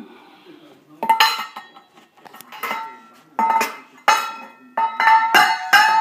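A rainbow lorikeet knocks a metal feed tin about among the utensils in a cutlery drawer. There are about seven sharp metallic clanks, each ringing briefly, and they come faster toward the end.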